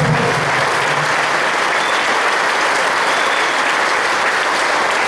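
Rally crowd applauding steadily, with a voice briefly heard over the clapping at the start.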